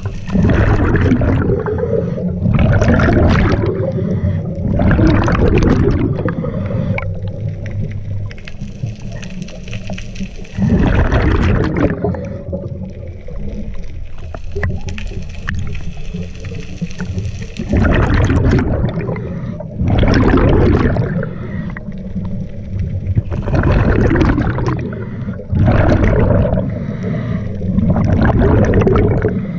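A scuba diver breathing through a regulator, heard underwater: repeated one- to two-second bursts of hissing and gurgling exhaled bubbles, some in close pairs, with quieter pauses between breaths over a low steady rumble.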